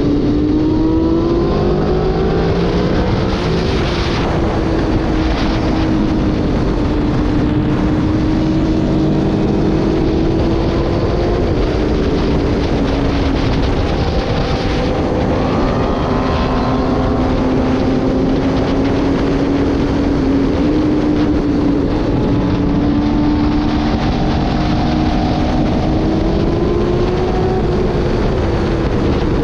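Sport motorcycle engine running at high revs under heavy wind rush, its pitch slowly rising and falling with the throttle.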